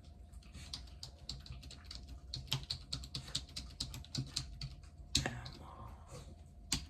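Typing on a computer keyboard: a quick, uneven run of key clicks, then two louder clacks near the end.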